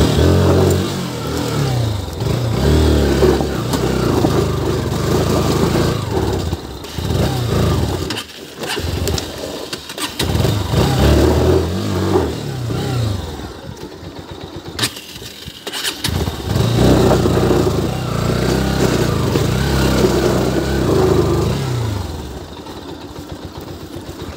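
Bajaj Pulsar NS160's single-cylinder engine revved in several long bursts, each rising and falling in pitch, with short pauses between them. The motorcycle is stuck in loose stones and is being throttled to drive it free.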